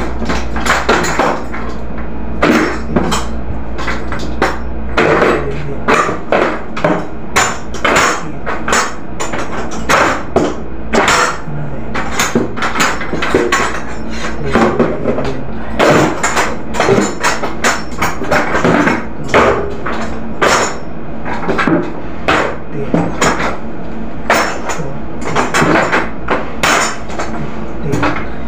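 Paint rollers with metal handles being dropped one by one into a plastic crate: a steady run of sharp knocks and clatters, roughly one to two a second.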